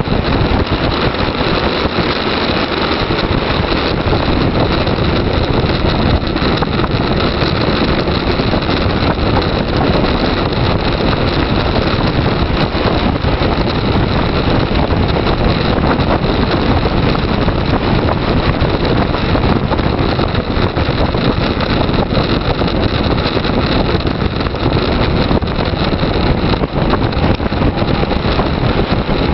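Loud, steady wind rush buffeting the microphone of a camera mounted on a bicycle during a fast road descent.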